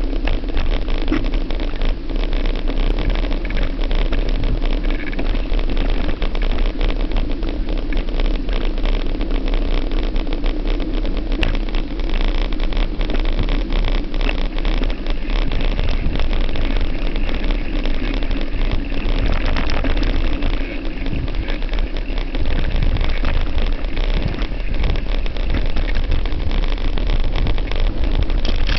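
An off-road vehicle's engine running steadily under way along a dirt trail, a continuous drone with no letup.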